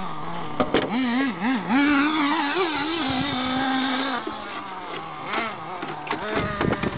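Small nitro RC engine running, its pitch wavering up and down with throttle changes and holding a steady idle for a while in the middle. A few sharp clicks and knocks come about half a second in and again between five and seven seconds in.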